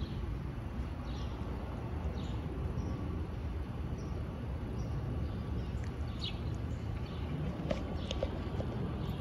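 Airbus A220-300 airliner passing high overhead: a steady, distant low jet rumble. Small birds chirp over it every second or so.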